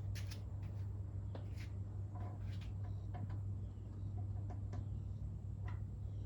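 Scattered light clicks and knocks from handling tools and lumber, over a steady low hum.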